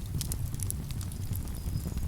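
Wood campfire crackling, with frequent small sharp pops and snaps over a steady low rumble.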